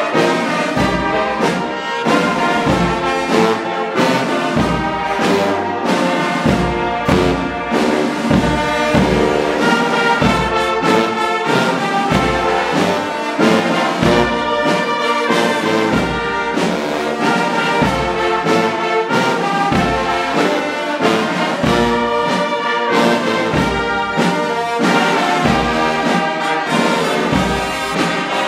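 Brass band of trombones, trumpets and tuba playing a piece together, with sustained chords over a steady low beat.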